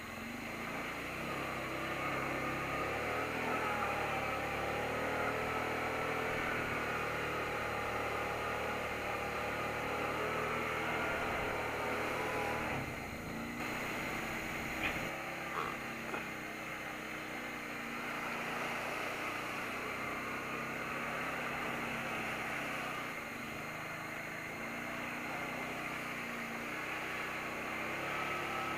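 Kawasaki Brute Force ATV engine running under changing throttle, its pitch rising and falling as the quad drives through shallow water and over gravel. There is a break in the sound about halfway through, and a couple of sharp knocks soon after.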